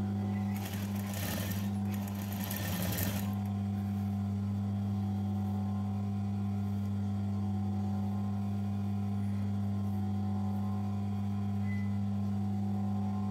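Sewing machine stitching lace trim onto fabric in two short runs, about a second in and again around two seconds in, over the steady hum of its electric motor.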